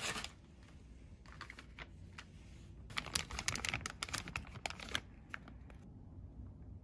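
Plastic snack bag of chocolate pretzels crinkling and crackling as a hand handles it, a short rustle near the start and a dense run of quick crackles from about three to five seconds in.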